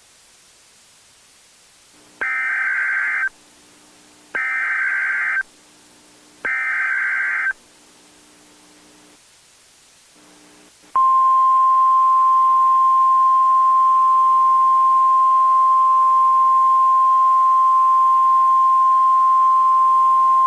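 Emergency Alert System SAME header: three buzzy, screeching data bursts of about a second each, two seconds apart, over a faint hum. They are followed about eleven seconds in by the steady 1050 Hz NOAA Weather Radio warning alarm tone, held for about ten seconds, signalling that an alert message is about to be read.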